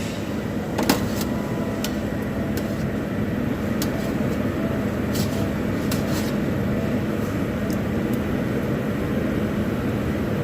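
Steady restaurant background noise, a rushing hum like ventilation, with a few short light clinks of serving utensils and dishes scattered through.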